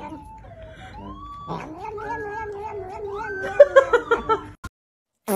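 A cat calling in long, wavering cries as it licks a treat from a squeeze tube. There is a short pause about a second in, then the cries resume and break into quick choppy pulses before cutting off sharply near the end.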